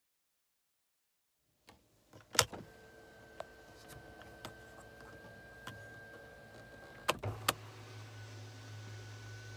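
Silence for the first couple of seconds, then a sharp click and the electric motor of the Mercedes S-Class panoramic sunroof blind running with a steady thin whine. Two more clicks about seven seconds in, after which a lower steady hum runs under the whine.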